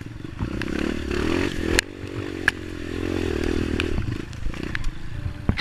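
Honda CRF230 dirt bike's single-cylinder four-stroke engine revving up through the mud, then dropping back to steadier running after a sharp knock about two seconds in. Scattered clicks and clattering ride over it.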